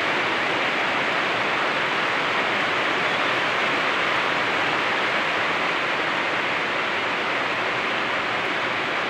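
Steady, unbroken hiss of rain falling.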